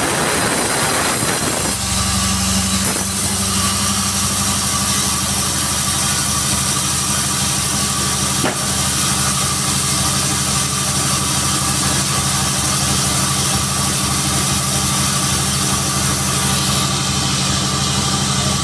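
Sawmill engine running steadily at idle, with a burst of rushing noise in the first second or two and a single click about halfway through.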